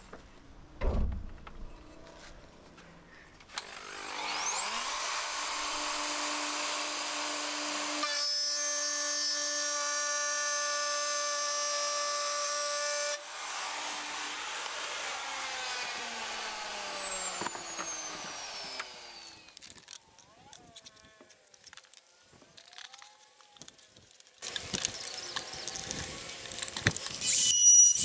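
Hand router with a 6 mm flat end mill switched on, its whine rising to a high steady pitch as it runs and cuts a slot in plywood, then switched off and winding down with a long falling whine. A thump comes about a second in, and near the end the router runs again, louder.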